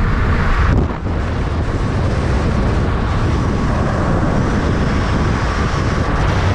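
Steady rush of wind and road noise from a moving van, with a brief dip about a second in.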